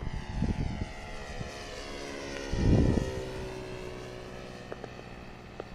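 Radio-controlled model airplane flying overhead, its engine and propeller a steady whine that slides down in pitch as it passes. A brief low rumble about halfway through.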